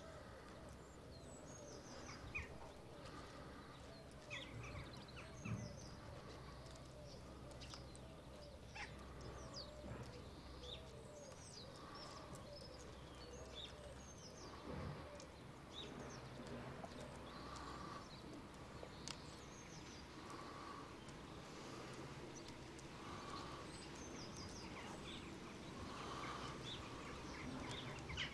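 Small birds chirping and calling over quiet outdoor background sound, with many brief, scattered chirps.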